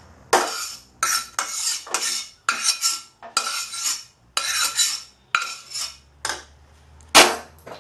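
Metal spatula scraping cooked cabbage out of a black iron wok into a steel bowl: a quick series of scrapes and knocks, about two a second, with a light metallic ring. A sharp metal clank near the end is the loudest sound.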